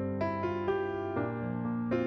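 Background music played on a piano-like keyboard, with soft chords and new notes coming in about every half second.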